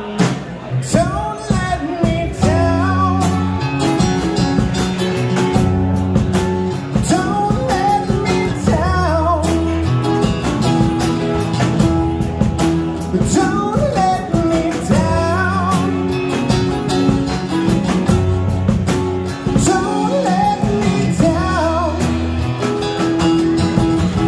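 Live rock band playing: acoustic-electric guitar, electric bass holding a repeating bass line, and a drum kit with cymbals, with a man singing at times.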